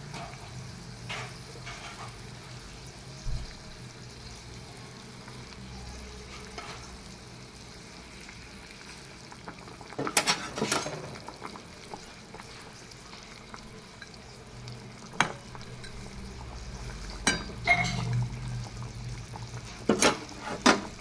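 Thin fish curry gravy simmering and sizzling steadily in a wok as fried pabda fish are laid into it one by one, with scattered sharp clicks and knocks against the pan, a cluster about ten seconds in and several more near the end.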